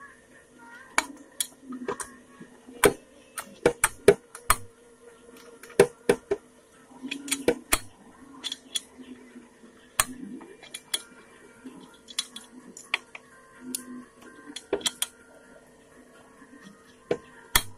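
Sharp metallic clinks and taps at irregular intervals, several a second in clusters with short gaps between, as metal tools and parts are handled in a workshop.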